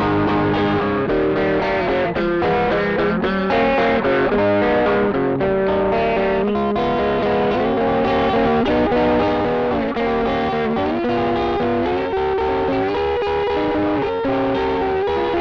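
Electric guitar playing a melodic passage of sustained, changing notes, distorted through a Caline 'British Sound' pedal and replayed by a looper pedal.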